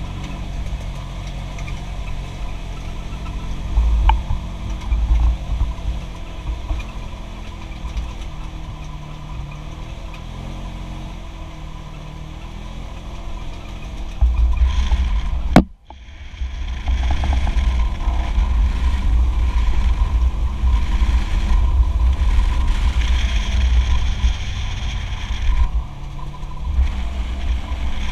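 Polaris General 1000 side-by-side driving along a sandy dirt trail, its twin-cylinder engine running under the rumble of tyres and wind buffeting in the open cab. A sharp click and brief drop-out come about halfway through, after which the sound is louder.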